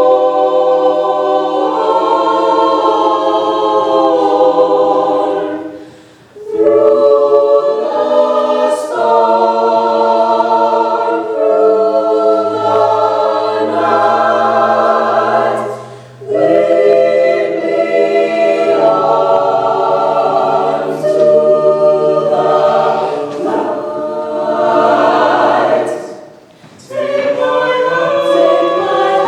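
Choir singing a cappella in several parts, with long held chords over a steady bass line. The phrases are separated by three short breaks.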